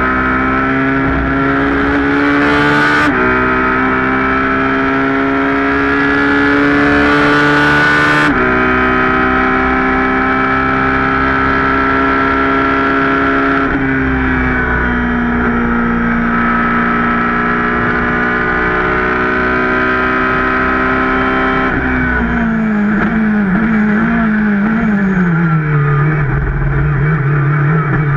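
Ferrari 458 GT2's V8 racing engine heard from inside the cockpit, accelerating hard: the pitch climbs and drops sharply at an upshift about three seconds in and another about eight seconds in, then holds at high revs. Near the end it brakes down through several quick downshifts, the pitch stepping down to a lower steady note.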